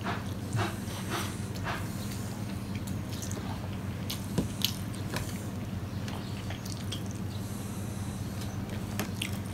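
Fingers mixing rice with fried papaya on a steel plate, with soft squishing and chewing. A few sharp clicks stand out, the loudest two close together about four and a half seconds in, over a steady low hum.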